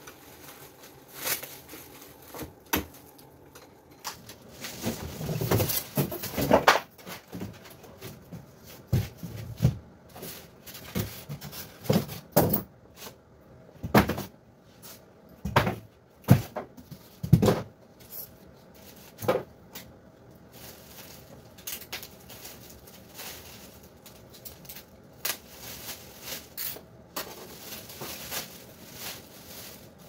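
Irregular knocks, bumps and clatters from a Dometic compact DC fridge being handled: its door swung and shut, the unit shifted about in its plastic wrap and cardboard box on a hand trolley. The knocks come thickest in the first two-thirds and thin out towards the end.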